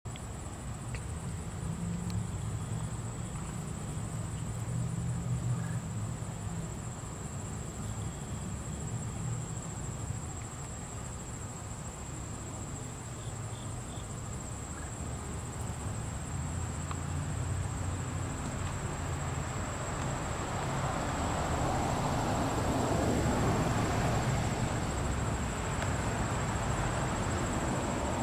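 A steady, high-pitched chorus of singing insects, such as crickets, trilling without pause. Beneath it is a low background rumble, and a broader rush that grows louder from about 20 seconds in.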